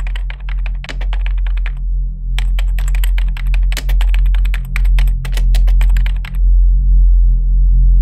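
Rapid computer keyboard typing in two bursts of fast key clicks, the second longer and stopping about six seconds in, over a low drone that swells about once a second.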